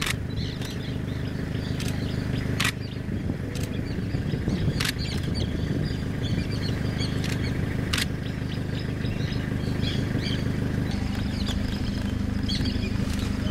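Birds chirping over the steady low hum of an idling engine, with a few single sharp camera-shutter clicks a couple of seconds apart.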